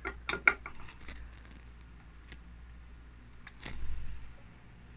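Screwdriver tightening the screw of a 3D-printed plastic rail mount on a BB gun: a few light clicks and handling noises, bunched in the first second, then sparser.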